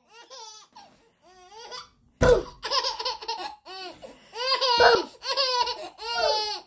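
A baby laughing: a few soft high coos, then from about two seconds in a run of loud, high-pitched laughs one after another.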